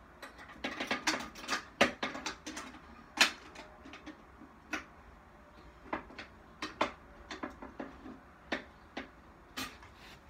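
Irregular sharp clicks and clacks of a pull-down police alarm being reset with its key, quick and bunched at first, then sparser single clicks.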